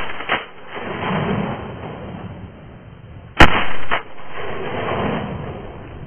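Shotgun shots at flying ducks: one report right at the start and a louder one about three and a half seconds in, with a quick second report half a second after it. Each is followed by a long rolling tail of echo.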